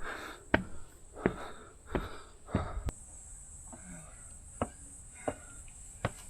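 A hiker's footsteps on a mountain trail, about one step every 0.7 s, with heavy panting breaths between steps that die away after about three seconds as the steps grow softer. A steady high insect trill, like crickets, runs underneath.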